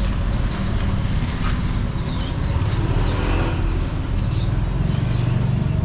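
Many caged songbirds chirping at once, a busy stream of short, quick downward-sweeping notes, over a steady low rumble of road traffic.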